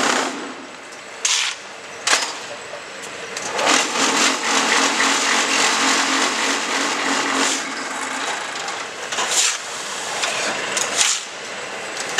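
QTJ4-26A concrete block-making machine working through a cycle: a couple of sharp metallic clanks in the first two seconds, then a steady vibrating buzz for about four seconds from about three and a half seconds in, as the mould is vibrated to compact the concrete, then more sharp clanks near the end.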